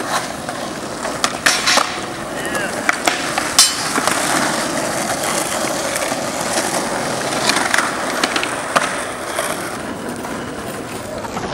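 Skateboard wheels rolling on rough asphalt, a steady gritty rumble, broken by several sharp clacks of boards popping and landing.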